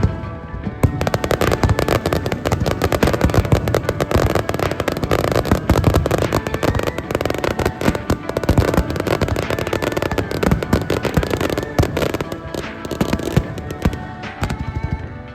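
Fireworks display: a dense run of rapid crackles and bangs, with music playing alongside.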